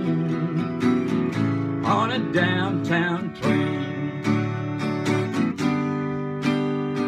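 Acoustic guitar strummed in a steady rhythm, chords ringing between strokes, as an instrumental passage between sung lines.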